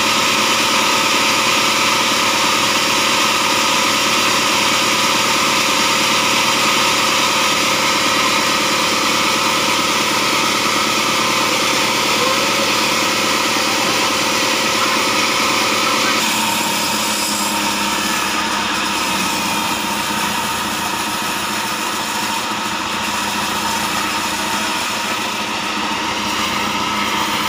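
Stationary engine driving a bandsaw sawmill, running steadily and unloaded with no cut being made; its sound shifts a little about halfway through.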